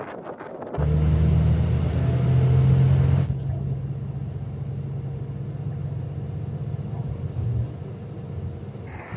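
Motor vehicle engine running: a loud, steady low rumble that starts abruptly about a second in and drops a little in level a few seconds later.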